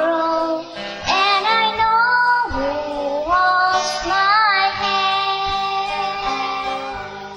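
A young girl singing a slow song, line by line, with held notes, accompanied by a strummed acoustic guitar.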